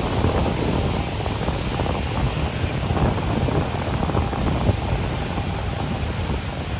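Wind buffeting the microphone: a loud, uneven rumble with a hiss over it.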